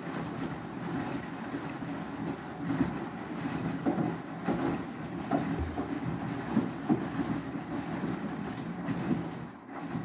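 Beko WTK104121W front-loading washing machine tumbling a load in its wash cycle: water and clothes slosh and splash in the turning drum, with irregular splashes over a steady running noise.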